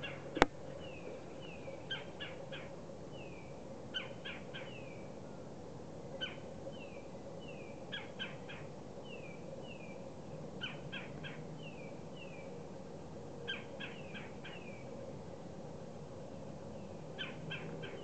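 Outdoor bird calls repeating about every two seconds: quick groups of three or four sharp notes alternating with short, falling whistled notes. A single sharp click sounds about half a second in.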